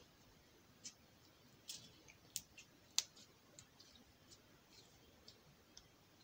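Slime being squeezed and stretched between the hands, giving faint, scattered little clicks and pops, the sharpest about three seconds in.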